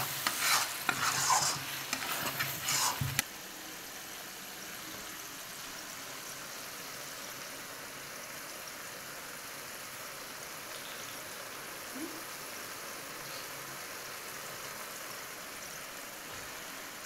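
A spatula stirring and scraping onion-tomato masala in a metal kadai over a frying sizzle, in quick strokes. About three seconds in this stops suddenly, and there is only a steady soft hiss of the masala frying on low heat.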